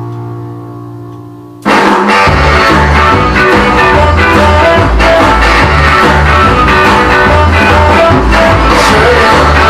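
Rock and roll records in a DJ mix: the last chord of one track fades out, then the next track starts abruptly, loud and full-band with a steady beat, about a second and a half in.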